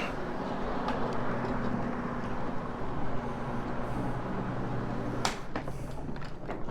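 Carpet-cleaning floor machine running steadily, scrubbing the carpet with a hog's hair fibre pad, a low motor hum over a rough scrubbing noise. A sharp knock comes about five seconds in, after which the hum drops in pitch.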